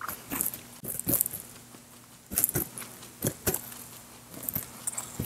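A rabbit crunching and chewing raw carrot, with a person biting into a raw apple alongside. The crisp crunches come in short clusters about every second, with quieter chewing between them.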